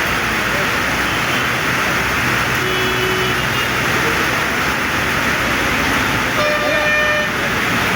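Heavy rain pouring down steadily. A short pitched tone sounds briefly near the end.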